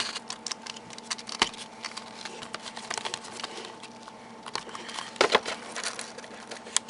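Small irregular clicks, taps and scratches of a box cutter being worked against the security seal on a small cardboard box, with a sharper click about a second and a half in and a short scrape about five seconds in.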